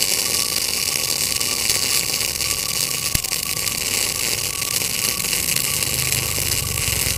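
Arc of a Tenya Smart MIG 265 welder laying a continuous MIG weld bead: a steady sizzling hiss, with one sharp pop about three seconds in.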